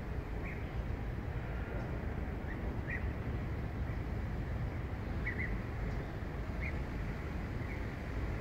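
A migrating flock of European bee-eaters calling as it passes overhead: short calls, about seven of them spread through, over a steady low background rumble.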